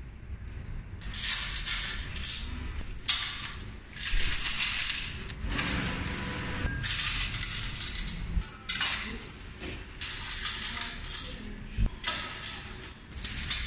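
Coins clinking and jingling in repeated bursts as handfuls are scooped out of plastic vending machine coin trays into plastic bags.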